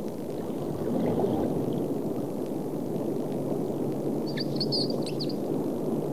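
Underwater ambience: a steady rushing, gurgling water noise, with a brief cluster of high squeaks about four and a half seconds in.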